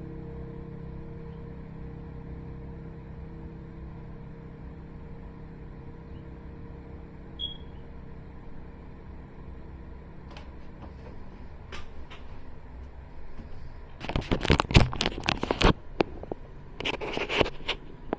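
An engine running with a steady low hum, which fades over the first ten seconds or so. It is followed, near the end, by a cluster of sharp knocks and clattering handling noise.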